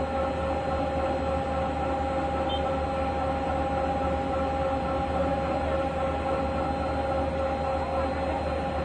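Girder-launching gantry's machinery running steadily: a constant whine with a low hum underneath.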